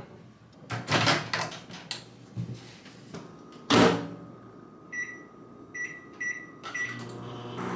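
Knocks and clinks from a kitchen cupboard, then an over-the-range microwave's door shut with a knock. A few short beeps follow as its keypad is pressed, and near the end the microwave starts running with a steady hum.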